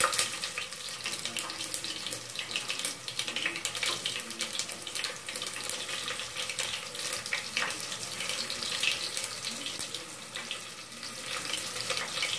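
Chopped onion and whole spices sizzling in hot oil in an aluminium pressure cooker, a steady hiss with many small crackles and pops.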